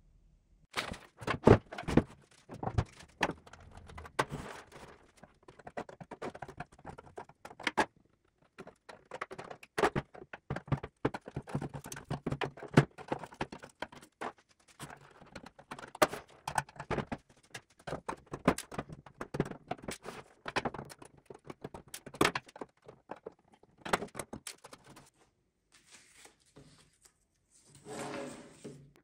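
Hand-tool work on an old wooden drawer: a flat screwdriver prying and scraping at the wood, with many irregular sharp clicks, knocks and taps of metal on wood. The loudest are single knocks. A short scrape comes near the end.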